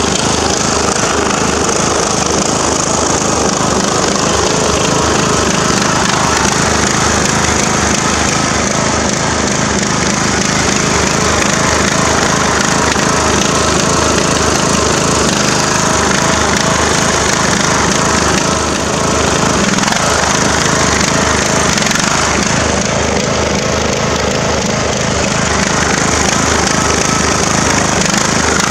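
Craftsman riding lawn mower's engine running loud and steady as the mower drives through a mud puddle, its tires churning mud and water.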